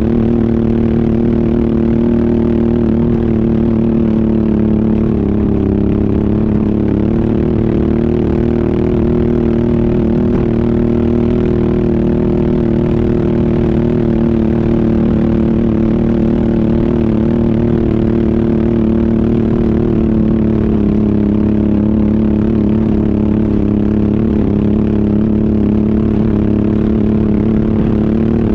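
ATV engine running steadily while riding, its pitch holding nearly constant with small rises and dips.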